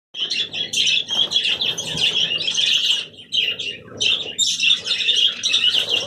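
A flock of pet budgerigars chirping and chattering continuously, a dense overlapping twitter with a short lull about three seconds in.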